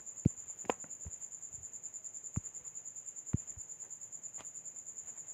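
A cricket trilling steadily, a high even pulsing note, with a few soft knocks scattered through it.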